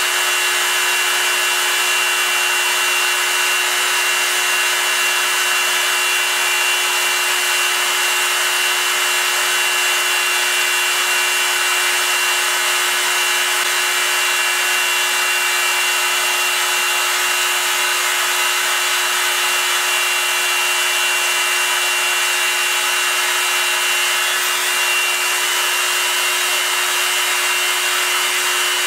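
Proxxon MF 70 mini milling machine running under CNC control, its small end mill cutting into an aluminium plate: a steady whine from the spindle over a continuous cutting hiss, unchanged throughout.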